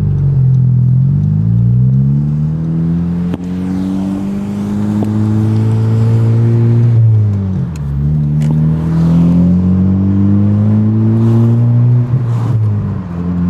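Honda Civic Type R FK8's turbocharged 2.0-litre four-cylinder through a Greddy DDR resonated exhaust, heard from inside the cabin, accelerating. The engine note climbs, holds, drops sharply in pitch a little past halfway at an upshift, then climbs again before another dip near the end.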